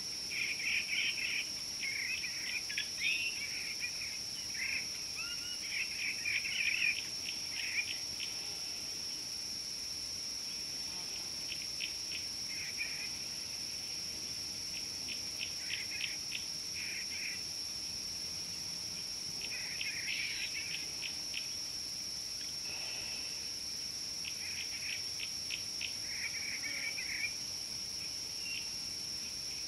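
Birds chirping in short, scattered bursts and quick tick-like series over a steady, high-pitched insect drone.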